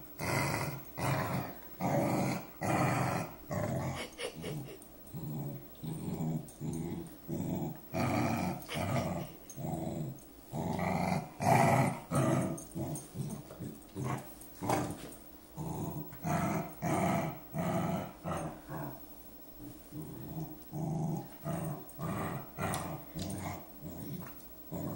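Dog's low, contented growl while being petted, her version of purring: a rhythmic grumble in short pulses, about three every two seconds.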